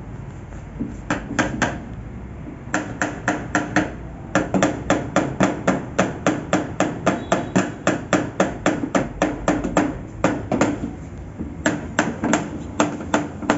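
Rapid, repeated hard knocking, about three knocks a second, in runs broken by short pauses, over a steady low hum.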